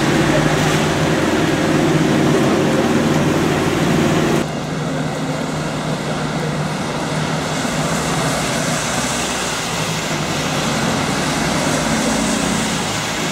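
A double-decker bus's engine running close as the bus pulls past on a wet road, cutting off abruptly about four seconds in. Then the steady hiss of traffic and tyres on a rain-soaked street, with another double-decker bus's engine growing louder near the end as it approaches.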